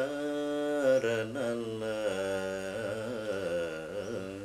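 Male Odhuvar singing Tamil devotional verse in a slow Carnatic-style melody, his voice gliding through long ornamented phrases.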